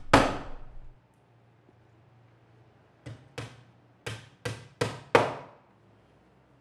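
Sharp knocks, like chopping or hammering on wood: one loud blow just after the start, then a quick run of six more about three to five seconds in, the last the loudest, each with a short ringing tail.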